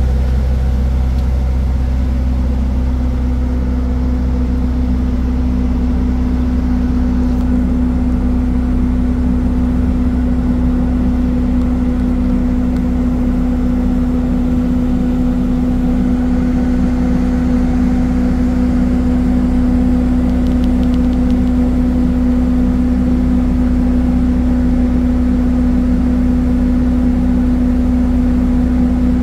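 Ship's engine machinery running with a loud, steady drone: a constant low hum with a steady mid-pitched tone over it.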